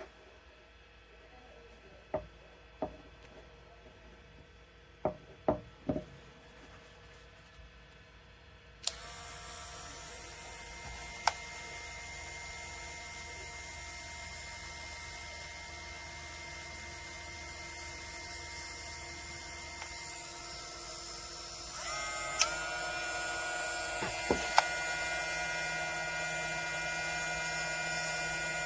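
A few knocks and clicks of the tool being handled, then a 3.7V cordless rotary tool switched on, running with a steady high whine. About 22 seconds in its pitch steps up as the speed setting is raised.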